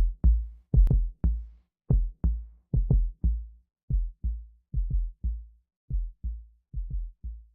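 Electronic drum-machine beat of deep, booming kick drums with no melody, hitting in a steady, regular pattern and growing slightly fainter toward the end.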